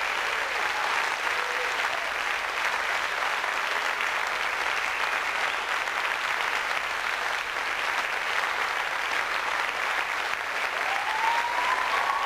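Theatre audience applauding steadily at the end of a musical number, a dense, even clapping.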